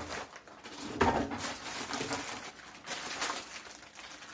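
Knocks and clatter of food containers and packages being handled and put away while organising a fridge, with the loudest knock about a second in.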